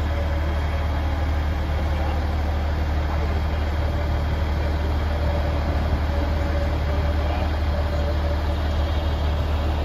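Crane truck's diesel engine idling steadily, a constant low hum.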